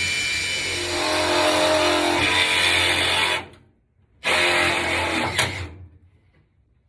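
A handheld power tool's motor running in two bursts, the first about three and a half seconds long and the second, after a short pause, about a second and a half, with a steady motor tone over a hiss.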